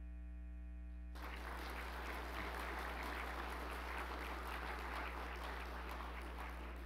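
Audience applauding, starting about a second in and dying away near the end, over a steady electrical hum.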